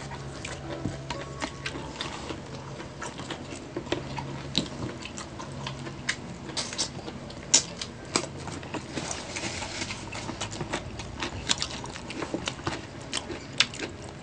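Two people eating, picked up close: chewing and mouth sounds with many short sharp clicks scattered through, from a spoon and clear plastic food trays.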